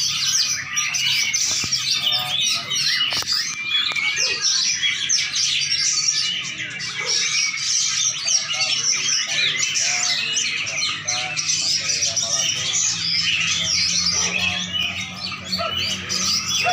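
A pesisian songbird singing a fast, unbroken stream of chirps and trills, with a faint low steady hum underneath.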